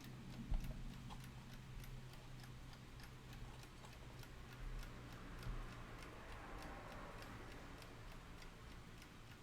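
Faint, even ticking of a running plastic-cased wind-up alarm clock's clockwork, several ticks a second.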